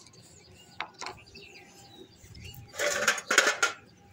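Mosquito netting over potted strawberry plants being handled: two light clicks about a second in, then a loud rustle near three seconds.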